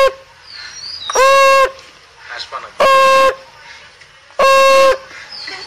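A horn blown in three short blasts on one steady, fairly high note, about a second and a half apart, with the tail of another blast at the very start.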